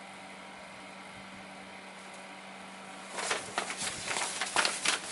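Steady electrical hum, then from about three seconds in a quick run of light clicks and rustles as resin model-kit parts and their packaging are handled.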